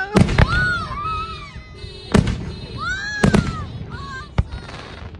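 Aerial fireworks shells bursting overhead: about six sharp bangs, two close together at the start, one about two seconds in, a quick pair a little over three seconds in and a last one near the end, with rising-and-falling whistling tones between them.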